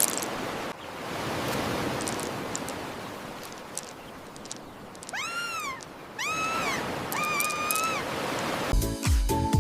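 Steady rushing noise like surf, then three short, high, meow-like cute animal calls about five seconds in, the last one held longer. Music with a beat starts near the end.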